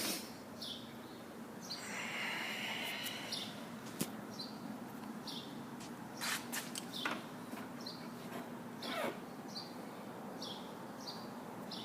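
Birds chirping: short high calls repeated about once a second over a faint steady hum.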